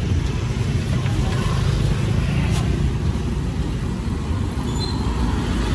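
Steady low rumble of street traffic with no clear single event.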